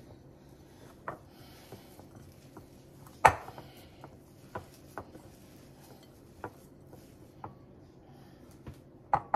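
Hands mixing ground turkey meat in a glass mixing bowl, with scattered light clicks and knocks against the glass, one sharper knock about three seconds in.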